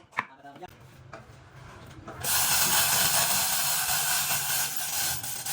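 A power tool starts about two seconds in and runs steadily with a loud high hiss over a low motor hum.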